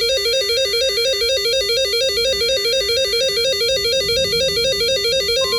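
Electronic emergency alert alarm: a buzzy tone warbling rapidly back and forth between two pitches, several times a second, sounding the start of a new weather alert. Just before the end a steady higher tone joins in.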